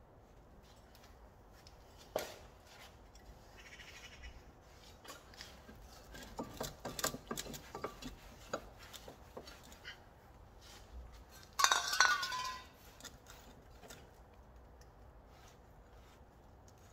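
Light metallic taps and clinks as a new brake disc on the wheel hub is handled and wiped. About twelve seconds in there is a louder, ringing clatter of metal parts.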